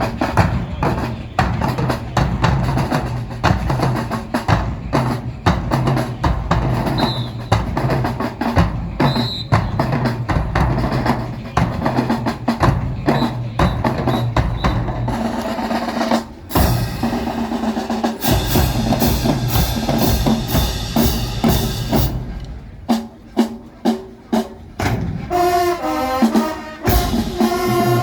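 Marching band playing: a drumline cadence of rapid snare and bass drum strokes, with the band's wind instruments coming in with held notes and a moving melody over the drums about halfway through.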